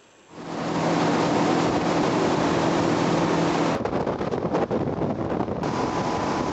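Small boat's engine running under way, a steady drone beneath heavy wind and water noise. The sound starts suddenly just after the start and changes abruptly about four seconds in.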